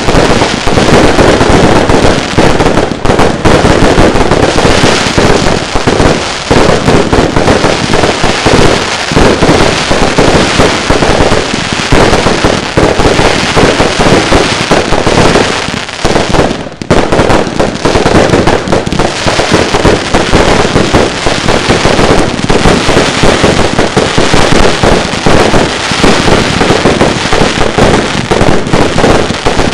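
Firework display barrage: a dense, loud, near-continuous run of bangs and crackles from rapid-firing firework cakes, with a brief let-up about seventeen seconds in before the firing picks up again.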